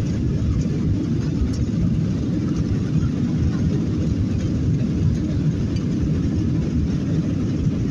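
Cabin noise of a Boeing 737 on its takeoff roll: the jet engines at takeoff thrust and the rumble of the wheels on the runway, heard from inside the cabin as a steady, loud, low rumble.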